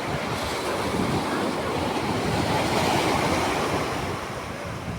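Sea waves washing onto a beach, a steady rushing wash that eases off a little near the end.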